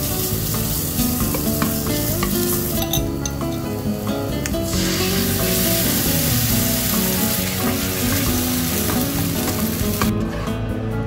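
Minced pork and canned fish in tomato sauce sizzling in hot oil in a nonstick pan, stirred with a spatula. The sizzle eases off for a moment about three seconds in and stops about a second before the end. Background music plays under it.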